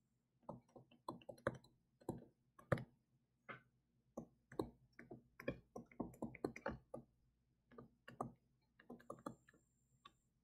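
Faint, irregular clicks and taps of a stylus tip on a tablet screen while words are handwritten, several taps a second with brief gaps.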